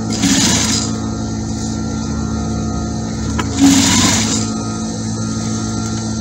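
A steady mechanical hum with several fixed tones. Two short rustling noises sit over it, one right at the start and one about three and a half seconds in.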